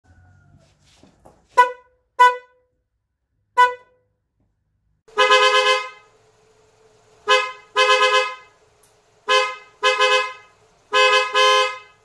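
A car's original single horn gives three short beeps. From about five seconds in, a newly fitted Seger dual snail horn pair (410 and 510 Hz) sounds two tones together: one longer blast, then several pairs of short honks.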